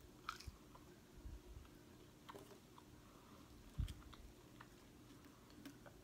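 Faint close-up chewing of food, with small wet mouth clicks and a soft low thump nearly four seconds in.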